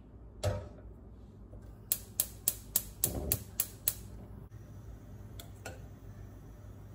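A stainless steel pot is set down on the grate of a gas hob with a low thud. Then the hob's spark igniter clicks about eight times in quick succession, roughly four a second, as the burner is lit, with two fainter clicks a little later.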